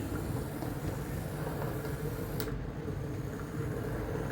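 Athearn HO-scale model locomotive's electric motor running along the track with a steady whirring hum, and one sharp click about two and a half seconds in.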